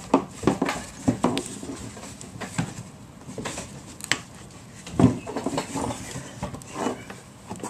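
Saab 9-3 fuel pump module, plastic, knocking and scraping against the rim of the fuel tank opening as it is twisted and worked out by hand: an irregular string of light clicks and clunks with rustling in between, the sharpest about four and five seconds in.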